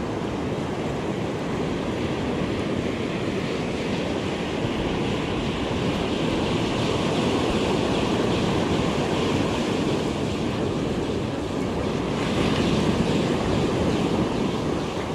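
Ocean surf breaking and washing up the sand close by, a steady rush that swells gently as each wave comes in.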